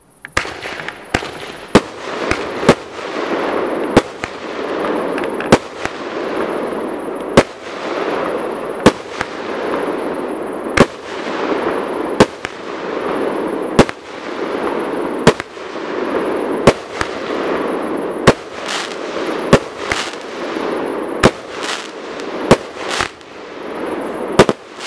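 A 19-shot, 30 mm consumer firework battery (cake) firing: sharp launch and burst reports about every second and a half, over continuous crackling from the crackling-star effects. The shots come closer together near the end in the closing three-shot salvo.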